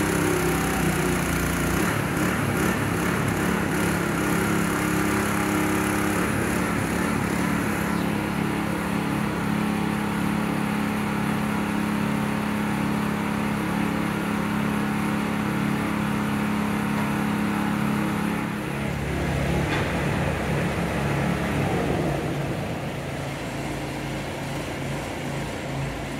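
Engine running steadily with an even hum; about eighteen seconds in its note changes and drops to a lower, rougher running sound.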